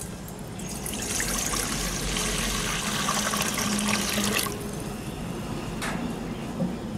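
A stream of water pouring into a stainless steel bowl, filling it; the pouring starts about a second in and stops about four and a half seconds in.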